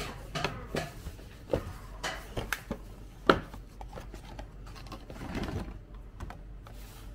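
A paperboard gift box being opened by hand: card flaps scraping and rustling, with a series of sharp taps and knocks, the loudest a little past three seconds in. A longer crinkly rustle about five seconds in as a plastic ice pack and a glass pudding jar are taken out.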